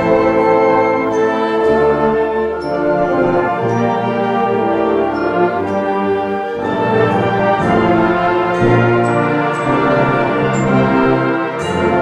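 Concert wind band playing full sustained chords, trombones, trumpets, saxophones and bassoons together, with a new phrase coming in about halfway through.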